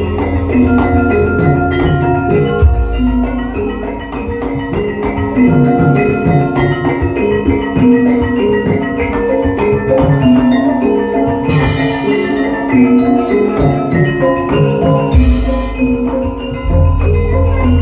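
Live Javanese gamelan playing dance accompaniment: mallet-struck bronze metallophones and kettle gongs ringing in a running melody over a deep gong hum and drum. Two brief noisy crashes, one a little past halfway and another about four seconds later.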